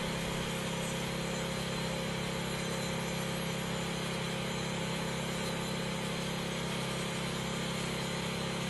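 DeWalt angle grinder with a crack-chaser wheel running steadily as it grinds along a crack in a concrete slab, opening up the crack for epoxy.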